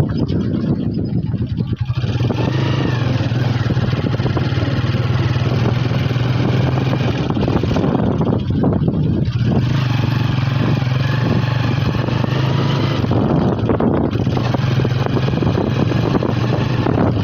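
Motorcycle engine running steadily while riding, with a broad rushing noise over it. The sound dips briefly about three times.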